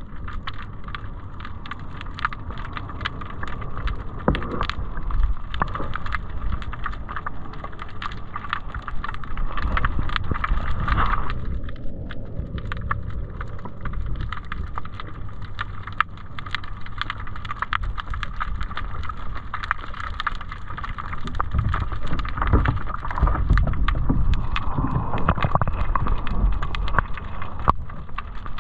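Underwater sound through a submerged action camera's housing: a muffled low rumble of moving water with a dense scatter of sharp clicks and crackles, the rumble swelling louder later on.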